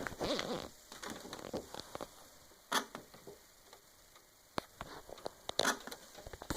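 Speakers of an LG 42LE4900 LED TV giving irregular clicks and pops, a clapping noise in place of the TV's sound. There is a burst of pops at the start and loud single pops a little under three seconds in and near the end. The owner cannot tell whether a failing main board or blown speakers are the cause.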